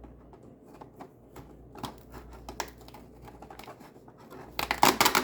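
Cardboard advent calendar doors and packaging being opened by hand: a run of small clicks and scratches, with a louder burst of rustling near the end.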